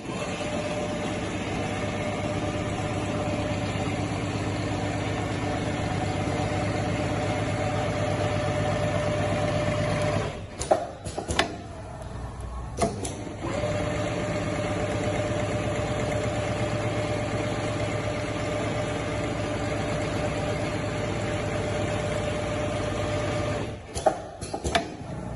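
Richpeace automatic sewing machine sewing a zigzag stitch, its needle going fast in an even, steady rhythm over a steady whine. About ten seconds in it stops for about three seconds, with a few sharp clicks, then starts again. It stops again near the end, with more clicks.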